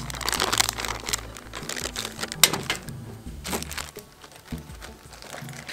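Scattered light clicks and a crinkling rustle, densest in the first second or so.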